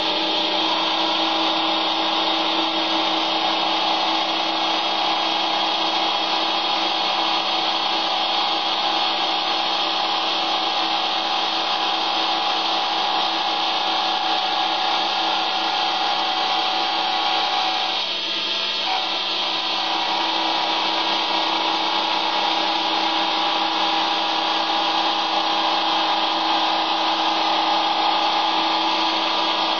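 Metal lathe spinning a small friction disc at about 1900 RPM as it cuts through very hard steel plate: a steady machine whine mixed with the grinding of the disc in the cut, dipping briefly a little past halfway through.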